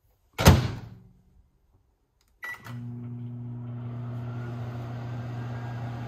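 A microwave oven door shut with a thump, then a short beep from the keypad about two and a half seconds in as the oven is started. The microwave then runs with a steady low hum.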